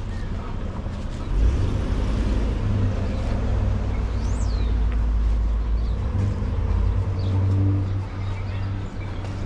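City street traffic, with a loud low rumble that comes in about a second and a half in and holds until near the end.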